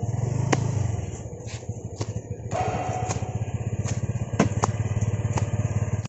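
Motorcycle engine labouring up a steep, rough trail, revving harder in the first second and then running on under load. Sharp clicks and knocks sound over it throughout.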